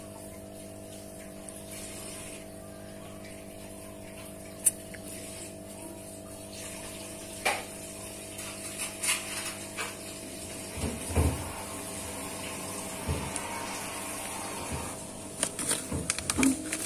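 Red-eared slider moving in shallow water in a plastic tub: scattered knocks and small splashes from about seven seconds in, coming more often near the end, over a steady hum.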